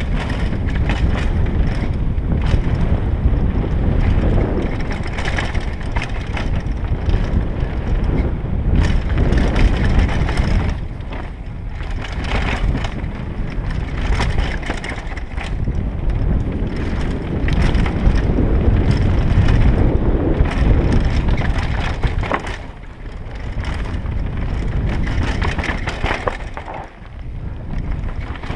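Mountain bike riding fast down a dirt forest trail, heard from a helmet camera: a steady rush of wind and tyre rumble over dirt and leaves, broken by frequent rattles and knocks from the bike over bumps and roots.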